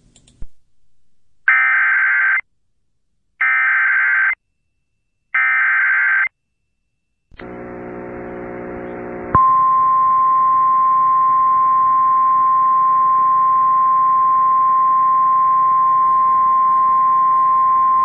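Emergency Alert System SAME header: three short bursts of warbling digital data tones, about a second each, with silence between. Then a low buzzing hum comes in, and about two seconds later a single steady high alert tone, the National Weather Service's 1050 Hz tone, sounds and holds for about nine seconds.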